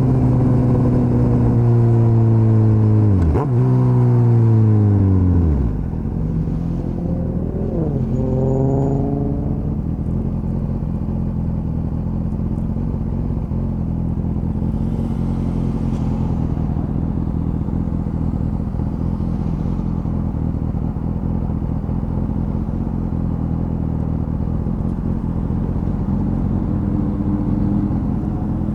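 Suzuki GSX-S1000's inline-four engine held at steady revs, then letting the revs fall away, twice in quick succession. A short throttle blip follows, and the engine settles into a steady idle.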